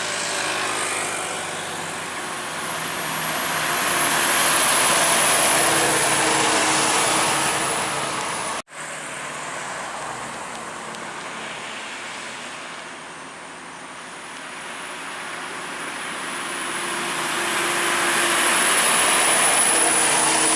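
Heavy trucks passing while climbing a steep hill, engine and tyre noise swelling as each goes by. The sound breaks off for an instant about nine seconds in, then a second truck builds up to a peak near the end.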